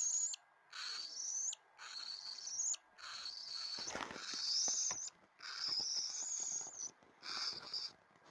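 A two-week-old cockatiel chick giving raspy, wheezy begging calls, about six in a row, each with a high rising squeal and short pauses between them.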